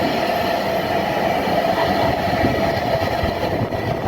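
A train running, a steady, even noise with a held tone in it.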